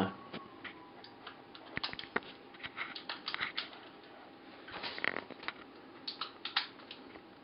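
Irregular light clicks and rattles of a plastic replica M4A1 BB gun being handled and adjusted, a few sharper clicks among them, while a loose part is worked on to stop it rattling.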